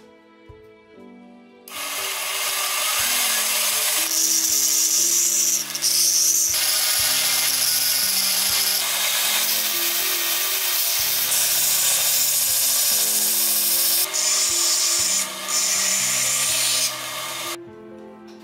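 Bench belt sander grinding a small piece of metal held against the moving belt: a loud, steady grinding hiss that starts about two seconds in and cuts off near the end, its sound shifting a few times as the piece is pressed and moved.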